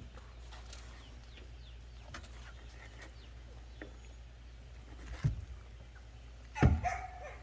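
Faint bird chirps over a low steady hum, with a knock about five seconds in and a louder knock, joined by a short call, near the end.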